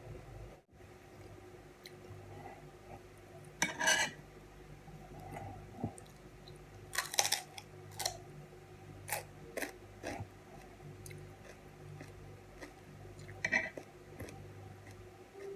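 Close-up eating sounds: crunchy bites and chewing of raw cucumber, with a table knife clicking and scraping on a plate as soft cheese is spread. Several separate sharp crunches and clicks, the loudest about four and seven seconds in, over a faint steady low hum.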